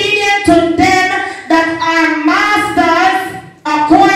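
A single high voice singing unaccompanied in long, drawn-out phrases, with brief breaks about a second and a half in and near the end.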